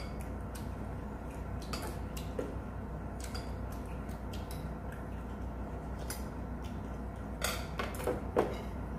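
Metal spoon and chopsticks clinking against stainless-steel bowls while eating: scattered light clicks, with a few louder ringing clinks near the end, over a steady low hum.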